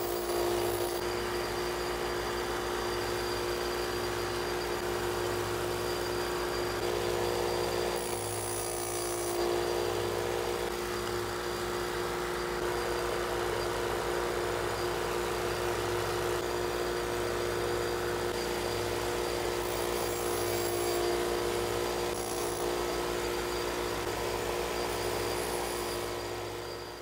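A 6-inch bench grinder runs steadily with a constant motor hum. A bit key blank is pressed against the grinding wheel in short grinding spells: at the start, about eight seconds in, and around twenty seconds in.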